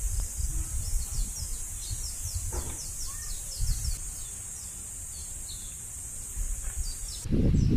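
Outdoor dusk ambience: a bird chirps again and again in short falling notes over a steady high hiss and a low rumble of wind on the microphone. About seven seconds in, the high hiss drops away and the wind rumble gets louder.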